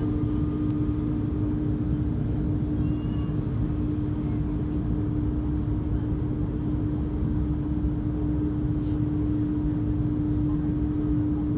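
Jet airliner engines running with a steady low rumble and a constant hum, with no rise or fall in pitch.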